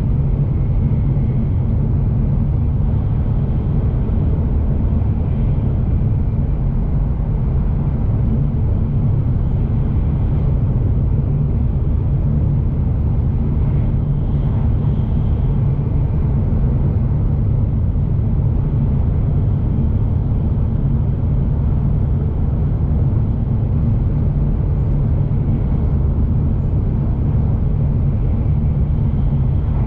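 Shinkansen bullet train running steadily, heard from inside the passenger cabin: a constant low rumble of the train in motion.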